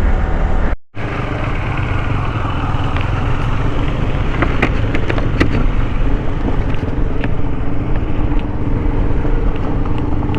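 Motorcycle engine running while riding, with wind noise on the microphone. The sound drops out briefly about a second in, and a few light clicks come near the middle.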